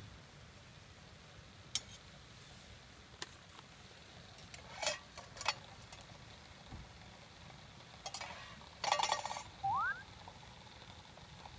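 Metal utensils clinking against a stainless steel camp pot and its lid: scattered single clinks, then a short rattling run about nine seconds in, followed by a brief rising squeak.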